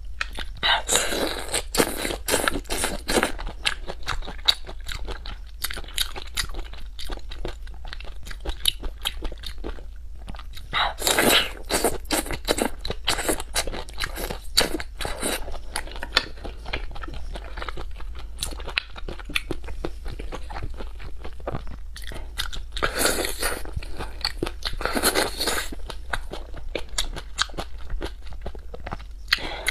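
Close-miked eating of spicy raw shrimp: wet chewing, biting and lip smacks, dense with small clicks. There are a few louder stretches about a second in, near the middle, and again about three quarters through.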